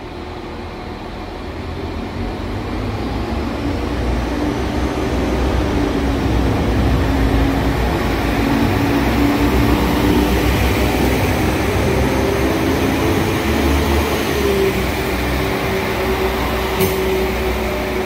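Northern Class 195 diesel multiple unit running along the platform and past close by. Its underfloor diesel engine drones over a low rumble, growing louder as it comes near, and the engine note steps up in pitch twice. There is a sharp click near the end.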